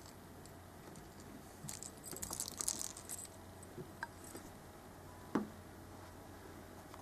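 A cat playing with toy mice on a window sill: a quick run of light jingling and rattling about two seconds in, then a single sharp knock on the sill a little past five seconds.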